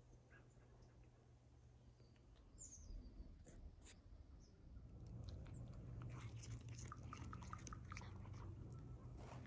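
A cat chewing grass close to the microphone: a run of quick, crisp crunching clicks starting about halfway in. There is a short, faint bird chirp before it.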